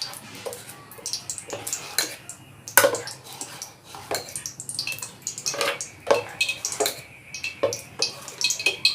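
Gram-flour (besan) batter being stirred in a bowl with a utensil: irregular clinks and knocks against the bowl.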